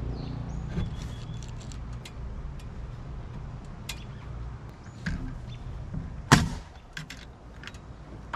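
Framing lumber knocking and tapping as a wooden top plate is worked into place on a stud wall, with one sharp, loud knock a little after six seconds in, over a low steady rumble.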